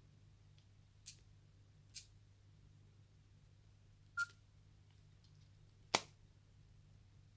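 Nokia N97 being operated by hand: a few light clicks as the touchscreen is tapped, one about four seconds in with a short beep of the phone's touch tone. About six seconds in comes a louder snap as the sliding keyboard closes.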